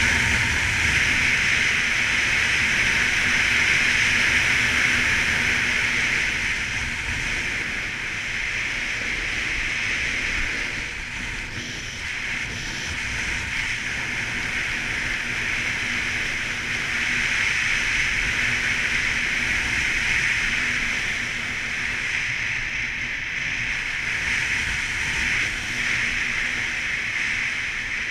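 Snowboard riding on a snowy piste: a steady hiss of the board sliding and carving over the snow, mixed with wind rushing over the action camera's microphone.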